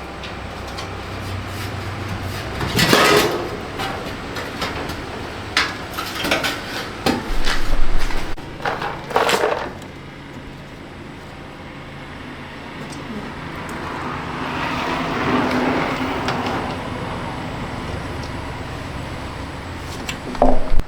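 Irregular clanks, knocks and rattles of metal parts and tools as a front-loading washing machine is taken apart. A steadier noise lasts a couple of seconds about two-thirds of the way through, and a sharp knock comes near the end.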